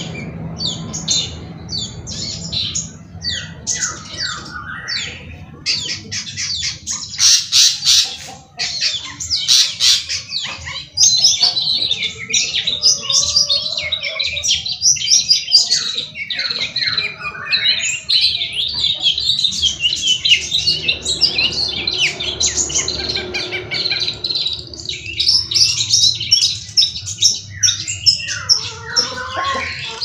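Caged long-tailed shrikes (cendet) singing in a head-to-head contest test: a dense, nearly continuous run of rapid high chattering notes and short sweeping calls, busiest from about seven seconds in.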